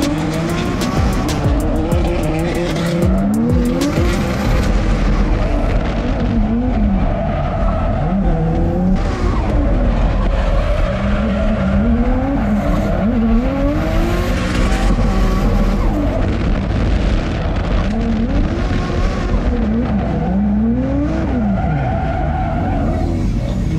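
A drift car's engine revving hard, its pitch climbing and dropping again and again as the throttle is worked, with tyres squealing and skidding.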